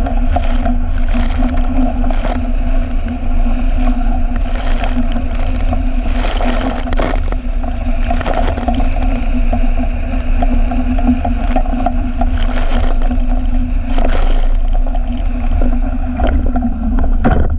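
Water rushing and splashing past the hulls of a Hobie 16 catamaran sailing fast, with heavy wind rumble on the boat-mounted camera's microphone, a steady hum underneath and repeated splashes of spray.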